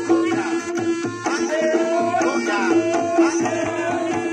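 Reog Ponorogo accompaniment music: kendang drum patterns under a wavering, sliding melody over a steady held tone.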